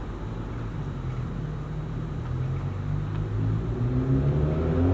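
Exhaust of a BMW 335i's turbocharged inline-six with its mufflers removed, a low steady drone at low revs that grows louder toward the end.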